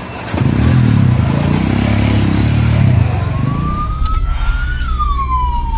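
A loud, low engine drone from a heavy vehicle. About three seconds in, an emergency vehicle's siren starts a slow wail, rising in pitch and then beginning to fall.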